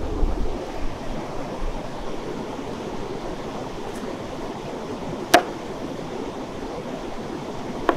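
A river rushing steadily. About five seconds in, a knife cuts through a tomato and strikes the wooden cutting board with one sharp tap, and a lighter tap follows near the end.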